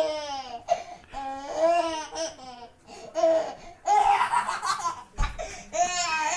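Toddler laughing in a string of short, high-pitched bursts, with one louder shriek of laughter about four seconds in.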